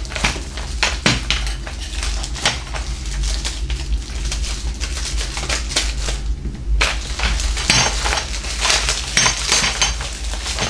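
Clear plastic packaging crinkling and rustling as it is pulled off a model plane's landing gear and wheels, with light clicks of the parts being handled; a short lull about six seconds in.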